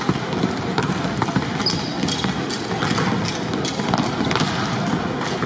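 Volleyballs being hit and bouncing on a hardwood court during pre-match warm-up: irregular sharp smacks, several a second, over a steady crowd murmur.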